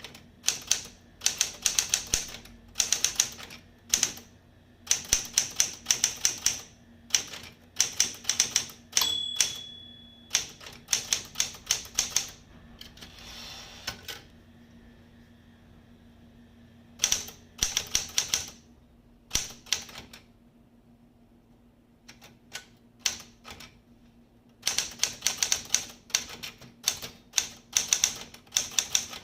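SCM Sterling 12 manual typewriter being typed on: runs of quick key strikes broken by pauses. The margin bell rings once about nine seconds in, and a few seconds later the carriage is returned with a short sliding rasp.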